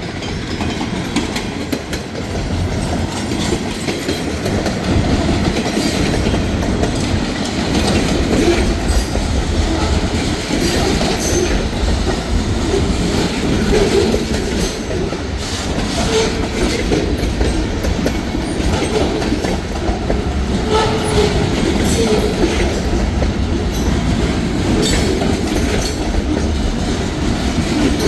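Escanaba & Lake Superior freight train rolling past, its wheels clacking steadily over rail joints, with brief wheel squeals now and then.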